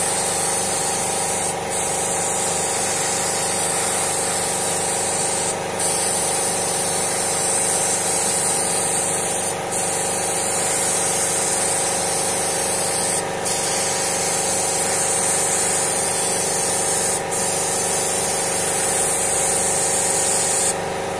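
Gravity-feed spray gun hissing as it sprays black enamel paint. The spray cuts out for a moment about every four seconds as the trigger is released between passes. Under it, an air compressor's motor runs with a steady hum.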